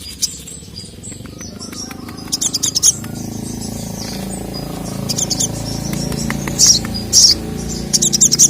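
Sogok ontong (little spiderhunter) calling in quick bursts of high, sharp chirps, several bursts that grow denser and loudest near the end, over a steady low hum.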